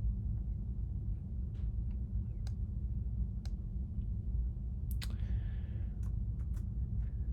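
Scattered computer keyboard and mouse clicks, a few in irregular succession, over a steady low hum.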